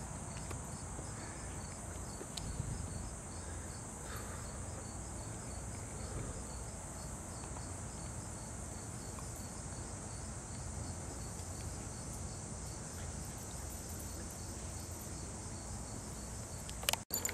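Steady insect chorus of crickets: a continuous high-pitched buzz with a faint, evenly repeating chirp beneath it. The sound briefly drops out near the end.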